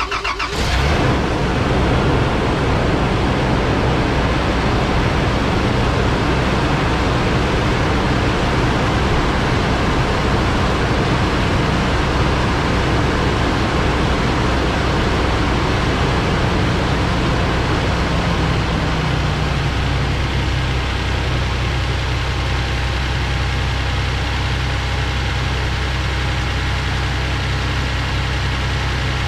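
Toyota 1FZ-FE straight-six, freshly rebuilt top end, running at a steady fast idle just after a cold start. Its pitch and loudness drop a little about twenty seconds in. It runs nice and quiet, with no exhaust leak to be heard.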